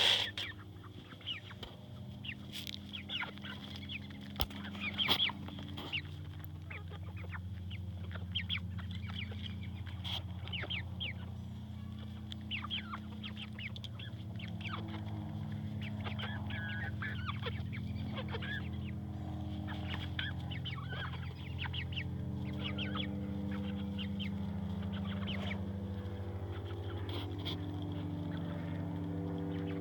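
Chickens clucking, with many short high calls scattered throughout and a loud call right at the start. A low steady hum runs underneath and grows louder over the second half.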